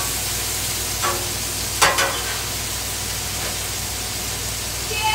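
Ground-beef burger patties and onions sizzling on a Blackstone flat-top griddle, with sharp metallic clinks of a steel spatula against the griddle about one and two seconds in.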